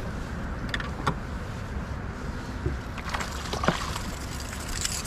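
Steady low rumble of a fishing boat on the water, with a few light knocks and short creaks of gear being handled aboard, one a little over a second in and a few more past the middle.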